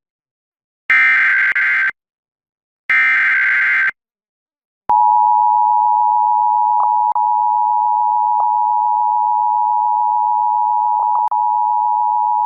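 Emergency Alert System broadcast tones. Two one-second bursts of SAME digital header data sound a second apart, ending the three-burst header. After about a second of silence, the two-tone EAS attention signal (853 and 960 Hz sounded together) starts about five seconds in and holds steady. Together they mark the start of an emergency alert.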